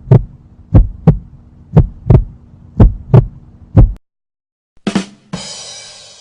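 Heartbeat sound effect: paired lub-dub thumps about once a second over a faint steady hum, stopping about four seconds in. Near the end a short sound is followed by a noisy rushing sound that fades away.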